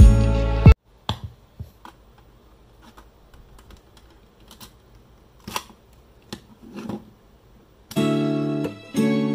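Portable cassette player being loaded: a few small plastic clicks and knocks as the tape goes in and the lid shuts, then about eight seconds in the play key is pressed and music starts, with keyboard or piano-like tones.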